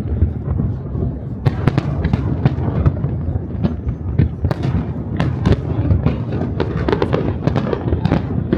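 Fireworks display exploding overhead: a rapid, irregular run of bangs and pops, several a second, over a continuous low rumble of booms.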